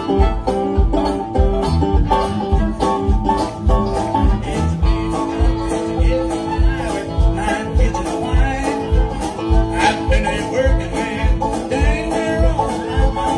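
Live country band playing an instrumental passage: fiddle and acoustic and electric guitars over bass and a steady drum beat, about two beats a second.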